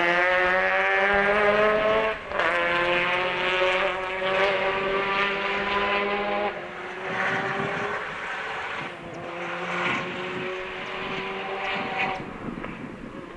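Rally car engine accelerating hard along a tarmac stage, its note climbing and then dropping back at each upshift, about four times, and growing fainter as the car pulls away.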